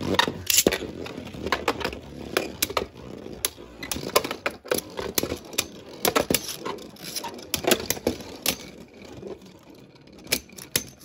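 Two Beyblade Burst spinning tops, Glyph Dragon and Zone Luminor, battling in a plastic stadium: a rapid, irregular clatter of clicks and knocks as they strike each other and the stadium walls. The clatter thins a little near the end, then comes back in a short flurry.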